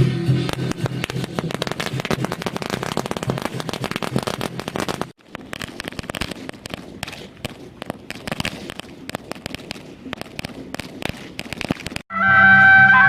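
A string of firecrackers going off in rapid, dense pops, loud for about five seconds, then fainter after a sudden break. Loud music cuts in abruptly near the end.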